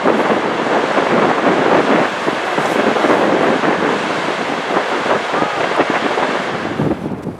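Wind buffeting the microphone over a loud, unbroken rushing noise, which drops away suddenly near the end.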